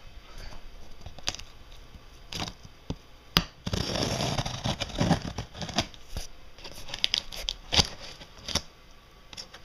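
Packing tape being torn off a cardboard shipping box and its flaps pulled open, with scattered sharp knocks and scrapes of cardboard. The loudest stretch of tearing comes about four seconds in.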